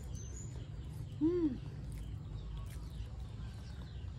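A woman's short hummed "mmm" while chewing fried cassava, its pitch rising then falling, about a second in. Faint bird chirps sound over a steady low rumble.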